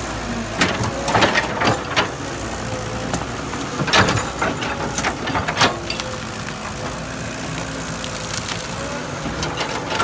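CAT E120B hydraulic excavator's engine running steadily while the bucket digs out brush and roots, with a string of sharp, irregular knocks and cracks as it tears into the ground.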